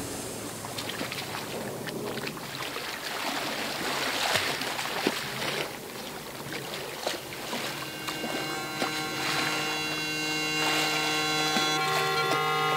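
River water and wind noise with a few scattered knocks. About eight seconds in, droning music of several long held notes comes in and keeps going.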